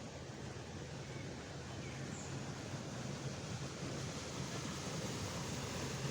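Passing motorboat's engine, a steady low hum over water noise, slowly growing louder as the boat approaches.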